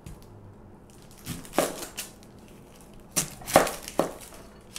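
Chef's knife cutting through a red onion onto a cutting board: two sharp chops about a second in, then three more in quick succession about three seconds in.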